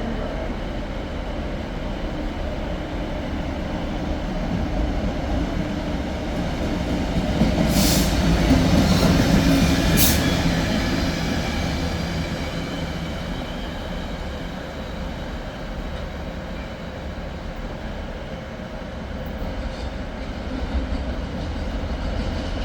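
Train moving past on the railway, its running noise swelling to a peak about eight to ten seconds in, with two sharp clanks from the wheels and track, then easing off.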